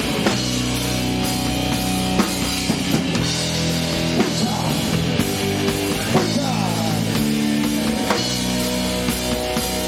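Live rock band playing an instrumental passage: a drum kit keeping a steady beat under sustained chords that change every second or two, with no singing.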